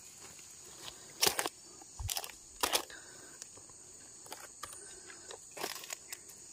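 Steady high-pitched insect drone, with a few short knocks and rustles as durian fruits are set into a woven basket on dry leaf litter. The loudest knocks come a little after one second and near three seconds in.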